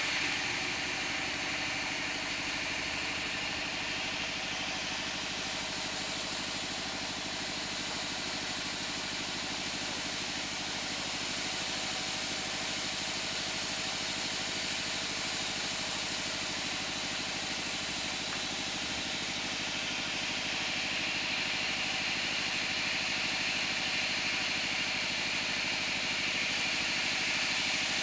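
Band sawmill running steadily, its motor and blade giving a continuous machine drone with a dense hiss, without a break.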